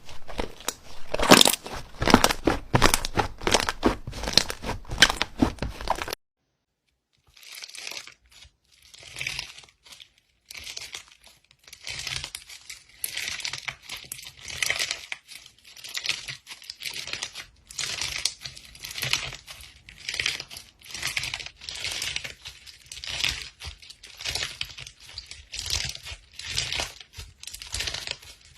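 Slime being squeezed and worked, making crackling, popping squishes: dense and loud for the first six seconds, then a sudden break of about a second, then lighter crackling bursts about once a second.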